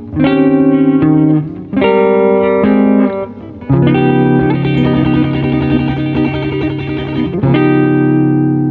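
Jazz guitar playing chords: a few struck chords, then a busier stretch of rapidly repeated notes, and near the end one chord left ringing and slowly fading.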